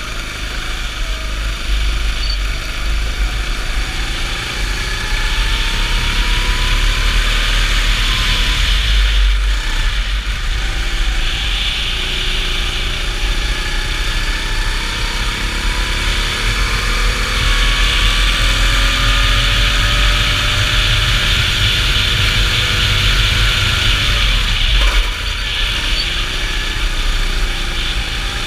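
Go-kart engine heard onboard, its pitch climbing steadily as the kart accelerates and dropping back twice when the driver lifts for corners, about a third of the way in and near the end. A steady rushing noise runs under the engine throughout.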